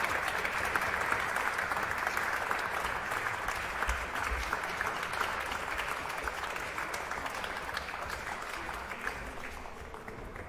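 Applause, many hands clapping, slowly fading toward the end.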